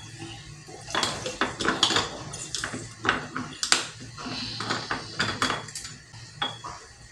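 Hand-held metal lemon squeezer clicking and clinking as lemon halves are loaded and pressed over a small glass jar: a rapid, uneven run of sharp metallic clicks beginning about a second in and dying away near the end.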